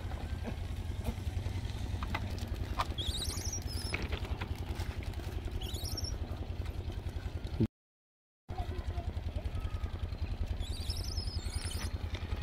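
Motorcycle engine idling with a steady low putter, with a few short high chirps coming and going over it. The sound cuts out completely for under a second about two-thirds of the way in.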